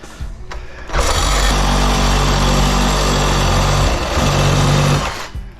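Power saw cutting through copper pipe at a brass fitting, starting about a second in, running steadily for about four seconds with a slight change in pitch near the end of the cut, then stopping.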